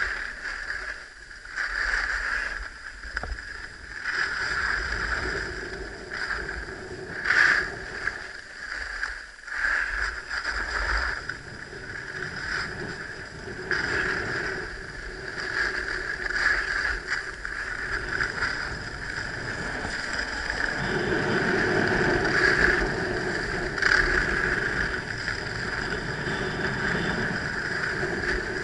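Skis sliding down a groomed piste, the edges hissing and scraping on packed snow in swooshes that swell and fade with each turn, with wind rumbling on the microphone, heavier in the later part.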